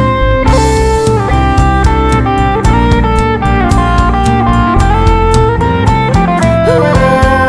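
Live band playing an instrumental passage of a ballad: a guitar melody over bass and drums, with a hi-hat ticking about four times a second.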